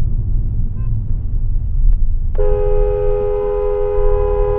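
Taxi's car horn sounding one long held blast, about two and a half seconds, starting about halfway in, over the low steady rumble of road and engine noise.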